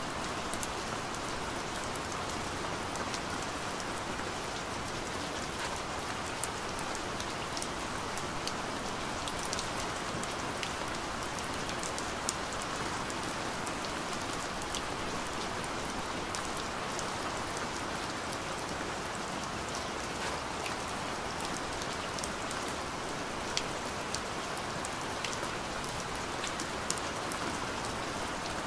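Steady rain falling: an even hiss with many small sharp drop ticks scattered through it.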